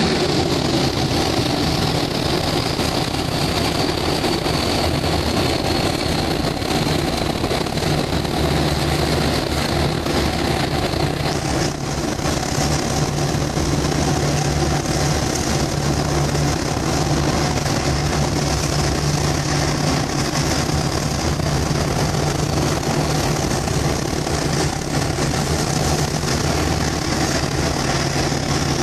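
Scania 142's 14-litre V8 diesel running steadily under way, heard from inside the cab. A faint high whine slowly drifts lower, then jumps higher about a third of the way through.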